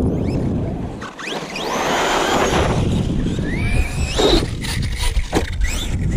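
Electric RC car's motor whining in rising glides as it speeds up, several times over, against heavy wind rumble on the microphone.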